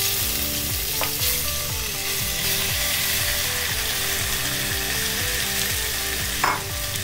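Cubes of raw braising steak sizzling as they go into hot oil in a small cast iron Dutch oven: a steady frying hiss as the beef starts to brown. A brief knock near the end.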